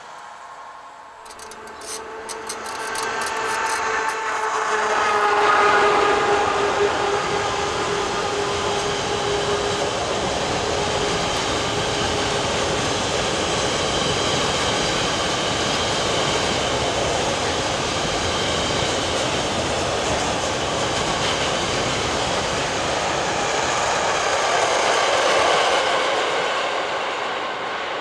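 A long freight train of tank wagons passing close by. The locomotive comes in about a second in with rapid clicking and a hum that sinks slightly in pitch as it goes by. Then comes a steady rolling rumble and clatter of the tank wagons' wheels on the rails, easing off near the end as the train draws away.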